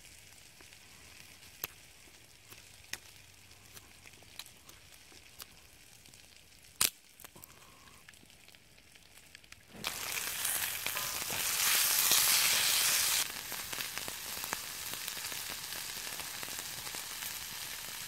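A knife shaving a green stick gives a few faint scrapes and ticks, with one sharper click. About ten seconds in, sliced onions frying in butter in a cast-iron skillet take over: a loud sizzle that swells for a few seconds while they are stirred with sticks, then settles to a steady sizzle.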